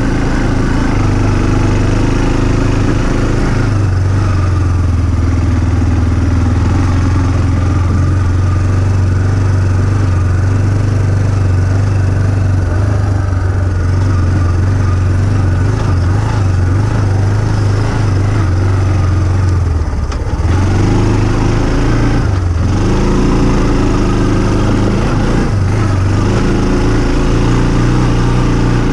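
Small off-road vehicle engine running close to the microphone at a steady throttle. About two-thirds of the way through, its note dips and changes twice, then settles again.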